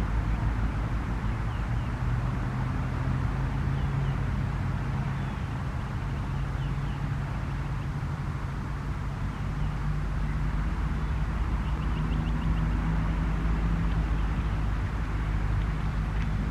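Federal Signal 2001-130 siren winding down at low speed, a low steady drone that fades a little mid-way and swells again as the malfunctioning rotator keeps turning the horn. A few faint bird chirps sit above it.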